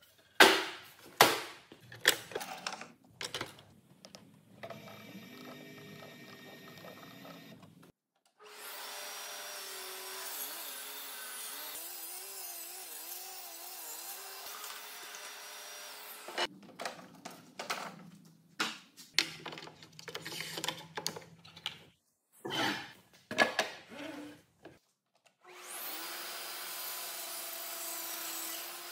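Festool CSC SYS 50 cordless table saw ripping wooden boards in two long cuts, the first through the middle and the second near the end, its note wavering as the blade works through the wood. Between the cuts come sharp knocks of boards being handled and set down on the saw table.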